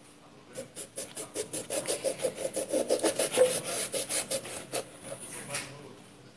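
Kitchen knife sawing through a lemon on a plastic cutting board: quick rasping back-and-forth strokes, about five a second, starting about half a second in and stopping near the end.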